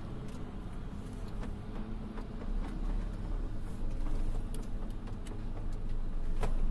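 Crawler drill rig running: a steady low engine drone with scattered sharp ticks.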